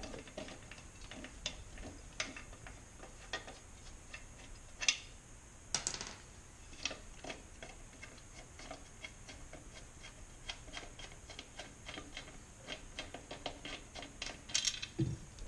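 Hand socket ratchet clicking in quick, even ticks as bolts are worked loose, with a few louder knocks of metal parts between.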